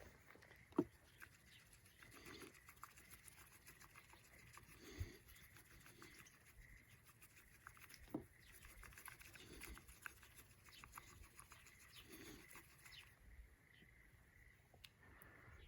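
Faint crackling of a small wood fire, with a few sharper pops: one about a second in, one about five seconds in and one about eight seconds in.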